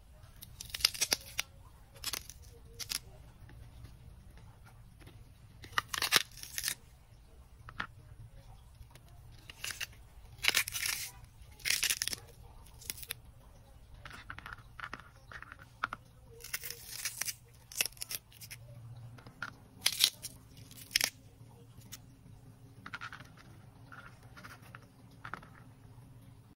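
Fresh celery stalks snapped and torn apart by hand: a long series of crisp snaps with the rip of stringy fibres, in irregular clusters. The loudest breaks come about a second in, around six seconds, between ten and twelve seconds, and around twenty seconds.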